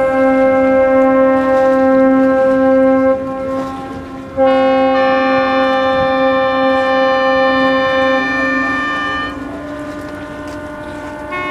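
Ship horns sounding long blasts: one blast runs through the first three seconds, another starts about four seconds in and is joined by a second, higher-pitched horn for about four seconds, then a fainter steady horn tone carries on.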